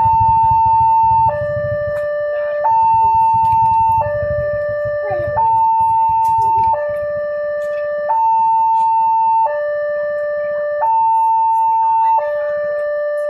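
Railway level-crossing warning siren (the crossing's newly installed electronic siren) sounding continuously. It alternates between a higher and a lower steady tone, each held about a second and a half, in an even hi-lo pattern. A low rumble underneath fades out over the first few seconds.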